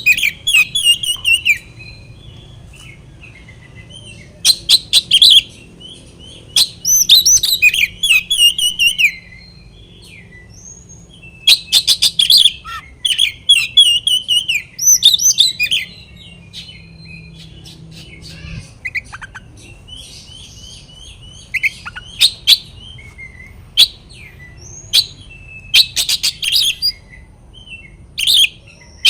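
Oriental magpie-robin (kacer) singing in loud bursts of sharp clicking notes and warbled whistles, with pauses of a few seconds between phrases. This is the excited song used as a lure to provoke rival males into singing.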